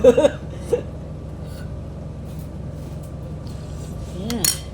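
A spoon clinking lightly against a bowl of soup, over a steady electrical hum.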